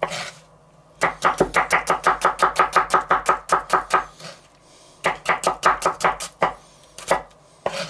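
Kitchen knife slicing red onion on a wooden cutting board: rapid strokes about seven a second, in two runs with a short pause about four seconds in, then a few last strokes near the end.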